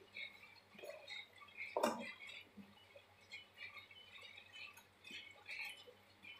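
Spatula stirring thick tomato chutney in a metal pan: faint, irregular wet scraping sounds, with one sharper knock about two seconds in.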